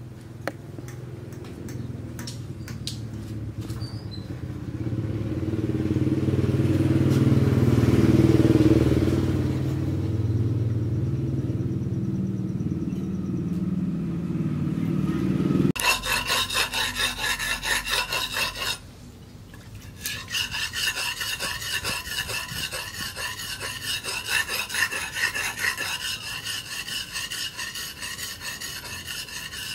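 A low engine-like rumble swells and fades over the first half. Then a machete blade is sharpened on a wet whetstone: quick back-and-forth rasping strokes of steel on stone, with a brief pause, then more strokes.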